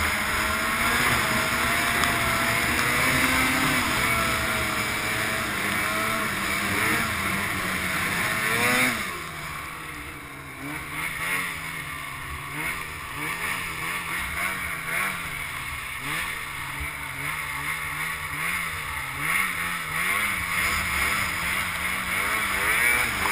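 Snowmobile engine running at high revs, its pitch rising and falling. About nine seconds in the throttle eases off and it runs quieter at lower, wavering revs.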